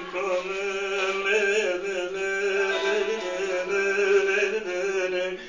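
Bağlama (saz) playing with its steady drone under a man singing a long, drawn-out, ornamented line of a Turkish folk song.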